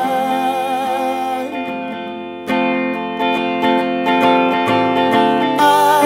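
A held sung note with vibrato dies away in the first second and a half. Then a Telecaster-style electric guitar strums chords in a steady rhythm, about three strokes a second, and the voice comes back in just before the end.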